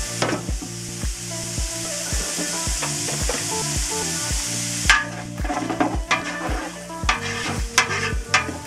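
Chopped onion, celery and garlic sizzling in olive oil and butter in a large aluminium pot. The sizzle cuts off abruptly about five seconds in, and short scraping strokes of the vegetables being stirred against the pot follow. Background music with a steady beat plays underneath.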